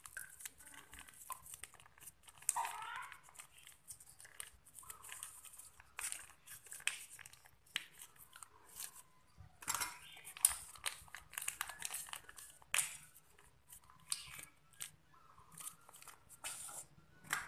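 Plastic sachets of Frisian Flag sweetened condensed milk crinkling and crackling in irregular bursts as they are squeezed and wrung out by hand.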